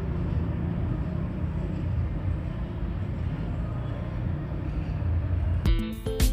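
A steady low rumble of background noise, then guitar music starts suddenly near the end.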